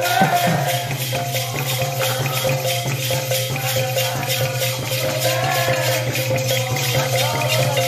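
Sambalpuri kirtan music: a barrel drum played with fast, steady jingling percussion over a held note.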